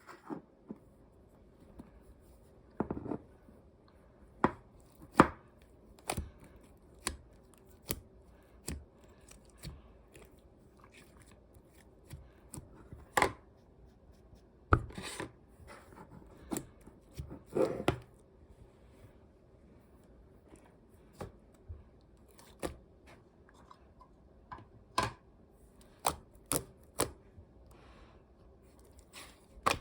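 Slime being mixed and kneaded by hand, giving short, sharp clicks and pops at irregular intervals, a few of them much louder.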